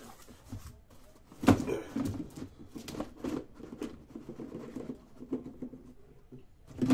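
Cardboard shipping case being opened and lifted off a stack of shrink-wrapped card boxes: a sharp knock about a second and a half in, then scraping and rustling of cardboard, and another thump at the end.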